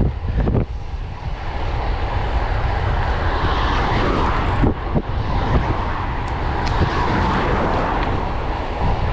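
Wind rushing over the microphone of a camera on a moving road bike: a loud, steady rush with low buffeting and a few brief knocks.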